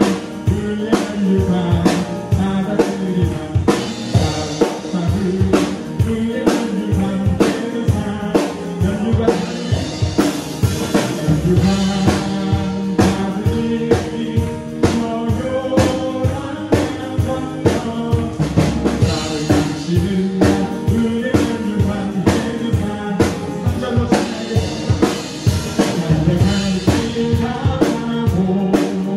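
Acoustic drum kit played in a steady beat, with kick, snare and cymbal crashes, along to a Korean worship song with singing.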